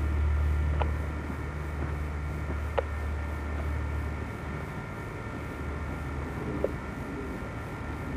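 Wind buffeting the camcorder microphone as a low rumble, strongest for the first four seconds and then easing. Three sharp clicks, most likely from handling the hang glider's frame, sound at about one second in, about three seconds in and near six and a half seconds.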